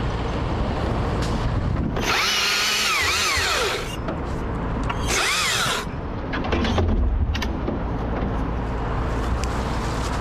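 Husqvarna T542i XP battery top-handle chainsaw cutting wood in two bursts, about two seconds in and again about five seconds in, its motor whine dipping and rising as the chain loads in the cut. A steady low engine hum from the lift runs underneath.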